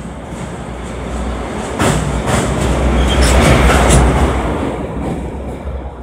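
WMB-10 rail draisine passing close by on a steel truss bridge: its wheels rumble on the rails with several sharp clacks over the rail joints. It swells to loudest about three to four seconds in, then fades as it moves away.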